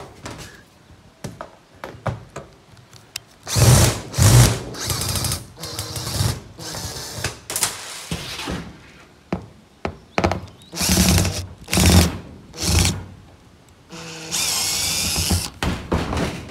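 Power drill running in short bursts, about eight times, with a longer run near the end whose pitch dips and rises: backing screws out of a trailer roof.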